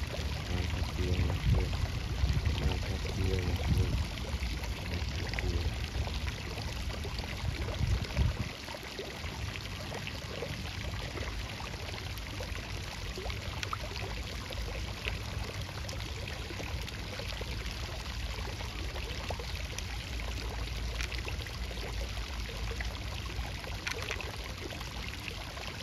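Steady rush of running water, with a heavier low rumble through the first eight seconds or so that then drops away.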